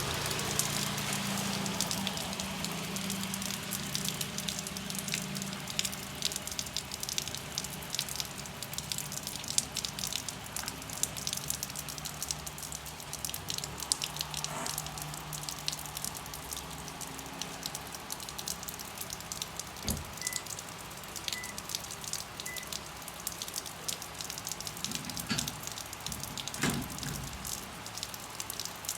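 Rain falling, with many individual drops tapping irregularly on a surface over a steady hiss. A low steady hum runs under it in the first half, and there is a single dull thump about two-thirds of the way through.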